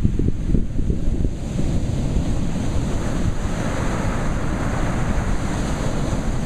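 Ocean surf breaking and washing up the beach, with heavy wind buffeting the microphone. The hiss of the breaking surf swells from about a second and a half in.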